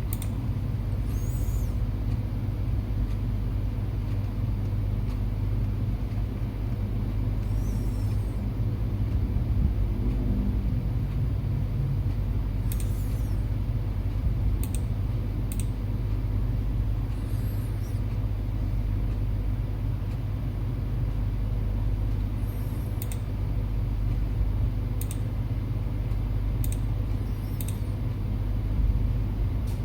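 Steady low background rumble, with a few short sharp clicks here and there.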